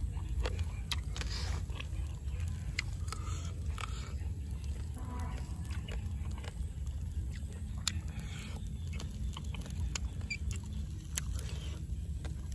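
A person chewing grilled pork head meat, with scattered wet smacks and small clicks from the mouth over a steady low rumble.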